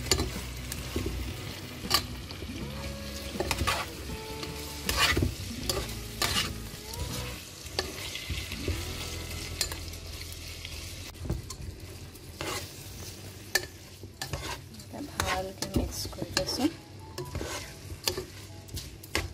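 Chicken pieces and onions frying and sizzling in oil in a nonstick pot, stirred with a spatula that scrapes and knocks against the pot many times. Near the end, raw rice is being stirred and fried in with the chicken.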